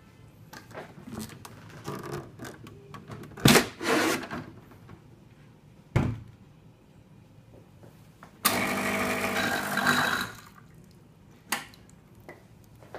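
Nuova Simonelli espresso machine running with a buzz for about two seconds, starting and stopping sharply, among knocks and clicks from its panel and lid being handled.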